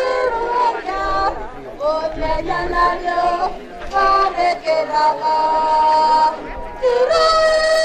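Voices singing a slow song, with one long held note about five seconds in.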